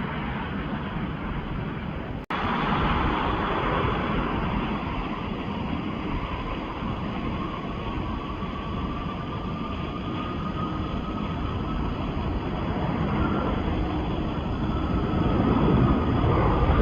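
Jet airliner engine noise: a steady rush with a faint whine that drifts up and then down, growing louder toward the end. A brief dropout about two seconds in.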